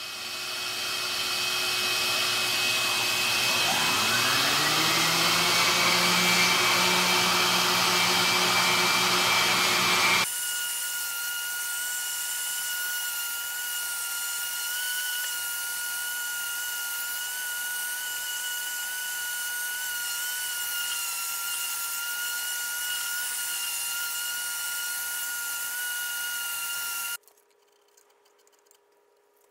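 Random orbit sander running on a walnut slab with a vacuum dust-extraction hose attached: one motor starts at once and a second spins up with a rising whine about four seconds in, both running steadily. An abrupt change about ten seconds in leaves a quieter, steady sanding sound with a clear whine, which cuts off suddenly near the end.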